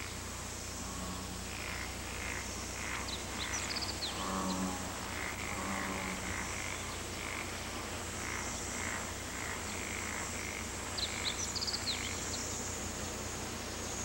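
Frogs calling: short croaks repeated a couple of times a second, with a few brief high bird chirps about three and a half seconds and eleven seconds in.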